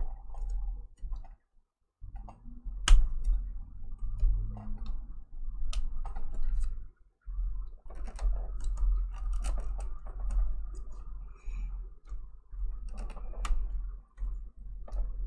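Scattered light clicks, taps and a few sharper knocks as hands handle and open a plastic picture frame on a tabletop.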